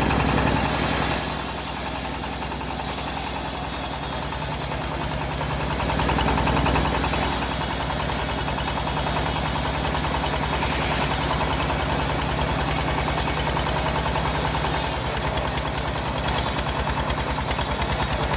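Engine of a homemade bandsaw sawmill running steadily with an even low knock, and a high hiss that swells and fades several times.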